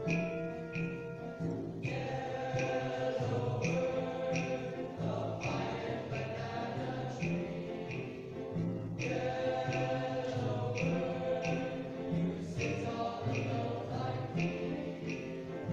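Men's high school chorus singing, several voices holding sustained chords in harmony.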